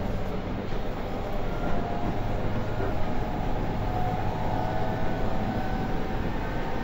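JR Kyushu 813 series electric multiple unit running along the line, heard from inside the car: a steady rumble of wheels and running gear. Faint steady tones come in a couple of seconds in.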